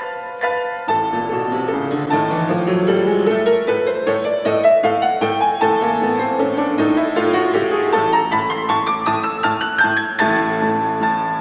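Piano music in a bell-like style: a quick repeated-note figure, then fast runs of notes climbing steadily higher for several seconds before settling into a high repeated pattern near the end.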